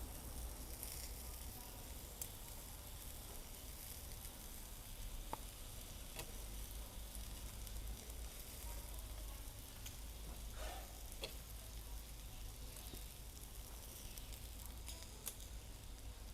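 Marinated pork ribs sizzling steadily on a grill, with scattered light clicks.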